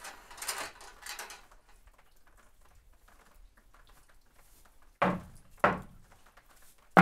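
A long-handled brush handled against a wooden crate: two short scrapes about half a second and a second in, then two sharp knocks on wood near the end.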